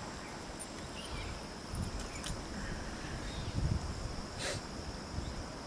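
Insects droning in a steady, high-pitched continuous chorus, with wind gusting low on the microphone and a single short, sharp sound about four and a half seconds in.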